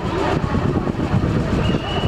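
Diesel-hauled passenger train passing close by: a loud, steady rumble with a rapid clatter of wheels on the rails. A thin high tone comes in near the end.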